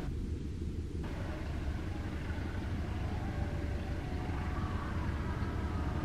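Train running on the track through the station junction: a steady low rumble, with faint thin tones above it.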